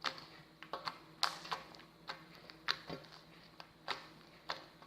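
Light-blue homemade foam slime, made with white glue and shampoo foam, being squeezed and folded in the hands, giving off irregular sharp clicking pops, about a dozen of them.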